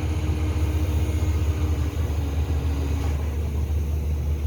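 Steady low rumble of an engine running, with a faint hum that fades out partway through.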